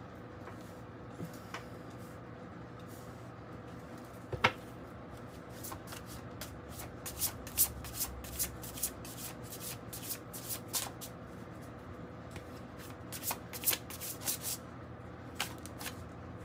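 Oracle cards being shuffled by hand: a dense run of quick flicks and riffles through the middle, after a single sharp tap a little earlier. A faint steady hum lies underneath.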